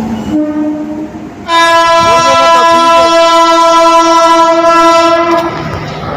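Train horn sounding a short toot, then a long steady blast of about four seconds that cuts off, followed by the noise of the train running.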